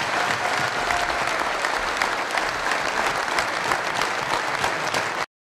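A crowd applauding, dense steady clapping that stops abruptly near the end.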